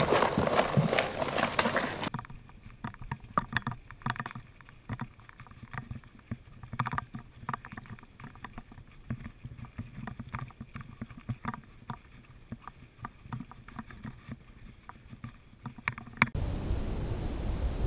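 Running footsteps crunching on a rocky dirt trail, picked up close by a body-worn camera as a string of quick, irregular crunches and scuffs. Near the end it cuts suddenly to a steady low wind rush.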